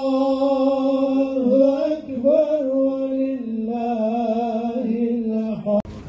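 A man chanting a slow, ornamented Islamic religious recitation in a single voice, holding each note for a second or two with wavering turns between them. The recitation breaks off abruptly near the end.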